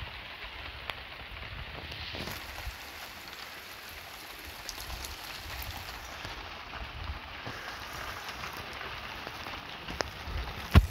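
Steady rain falling and pattering on surfaces, with scattered drop ticks. A sharp tap comes just before the end, the loudest moment.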